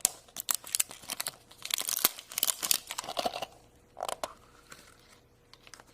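Wrapper of a Shopkins Easter egg crinkling and tearing as it is opened by hand: a dense spell of irregular crackles, one more short burst, then stillness.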